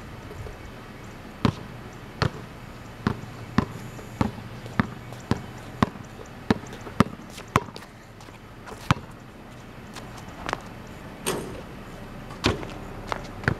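A basketball dribbled on a concrete driveway: a steady run of sharp bounces, a little under two a second, from about a second and a half in until just past halfway. After that come a few scattered bounces and knocks.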